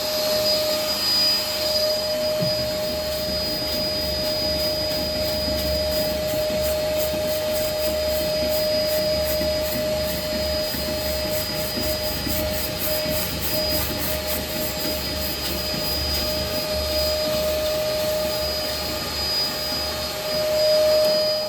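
Wet/dry vacuum running steadily with a constant high whine, sucking water and dried condensate debris out of a condensing boiler's heat exchanger. It cuts off at the end.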